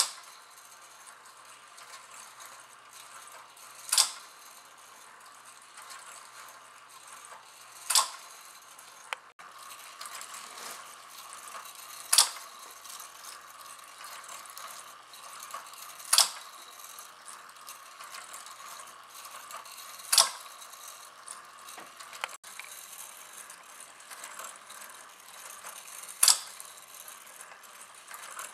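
Wooden automaton mechanism turned by a small electric gear motor: a steady faint whir and rattle of the turning cams and shaft, with a sharp wooden clack roughly every four seconds and a few lighter ticks in between.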